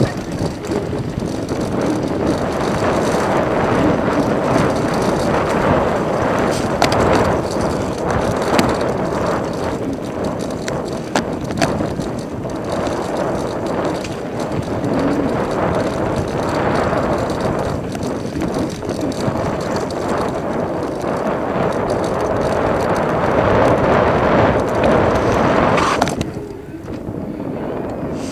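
Iron Horse Azure Sport mountain bike riding a bumpy dirt singletrack, recorded on a helmet-mounted iPod nano: steady wind and riding noise on the microphone, with frequent rattles and knocks from the bumps. Near the end it gets quieter and smoother as the bike rolls onto pavement.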